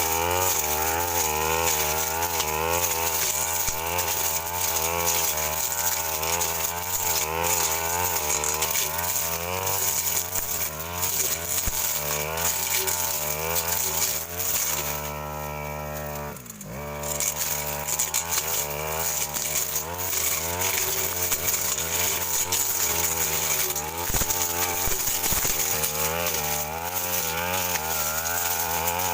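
Stihl FR 3001 backpack brush cutter running at high revs, its blade cutting through woody scrub, the engine pitch wavering up and down under load. About halfway through it runs steady and unloaded for a couple of seconds, dips briefly, then goes back to cutting.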